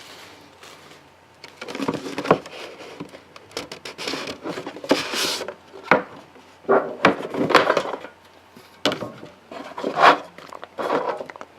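A trading-card box being opened and handled by hand: irregular rubbing, scraping and light knocks of the packaging.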